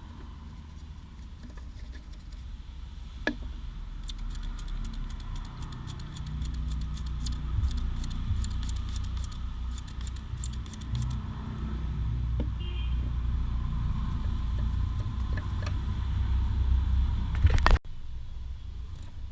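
Metal bike chain links clinking and rattling as the chain is handled during cleaning, with a run of quick clicks lasting several seconds over a low rumble. A loud knock comes near the end.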